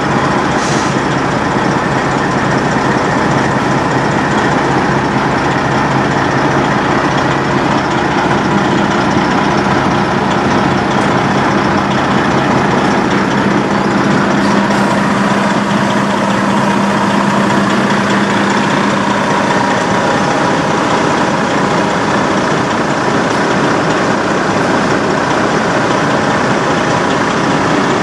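1996 Peterbilt 379 semi truck's diesel engine idling steadily, heard up close.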